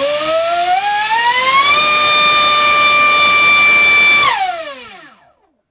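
Dr Mad Thrust 2870 3000 kV inrunner brushless motor spinning a 5x5 prop on a 4S battery, run up to full throttle on a thrust stand. A loud high whine with rushing air rises in pitch over about two seconds, holds steady, then falls away as the motor spools down about four seconds in.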